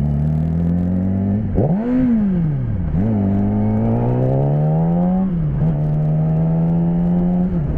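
2009 Yamaha R6's inline-four engine revving. A quick blip rises and falls about two seconds in, then the revs climb steadily, fall back about five seconds in, and hold steady.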